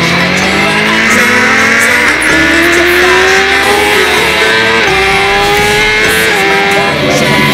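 Sport motorcycle engine under hard acceleration, its pitch climbing and then dropping sharply at each of three upshifts, with music mixed underneath.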